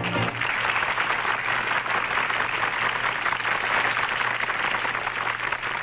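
Studio audience applauding steadily, right after the band's last chord cuts off at the very start.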